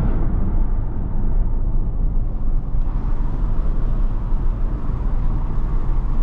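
Steady low road and engine rumble inside a Mahindra XUV300's cabin while it drives along a highway.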